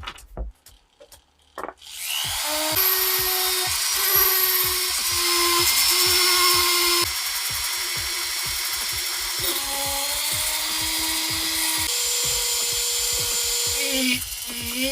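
Electric power tool, drill-like, starts about two seconds in and runs steadily, its pitch shifting a few times as the load changes.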